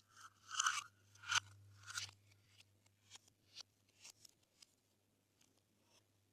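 Glossy slime being mixed by hand, popping and crackling as it is pressed and pulled. There are a few louder bursts of pops in the first two seconds, then fainter scattered clicks.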